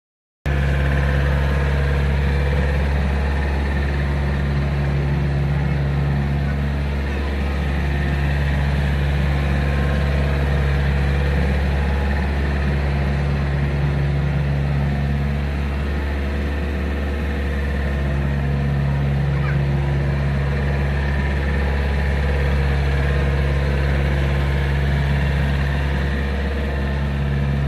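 Komatsu PC40 mini excavator's diesel engine running steadily, one tone in its hum dropping out briefly three times.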